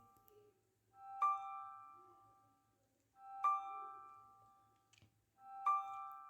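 Background music: a soft piano-like chord struck three times, about every two seconds, each one ringing out and fading before the next.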